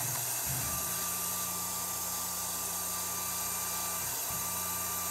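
Tormach PCNC 1100 milling machine spindle running a form tap into small titanium parts through a tension-compression tapping head, a steady hum. The hum breaks off briefly about half a second in and again about four seconds in as the spindle stops and reverses between tapping strokes. The longer, stiffer-sprung tapping head is now taking the taps to full depth.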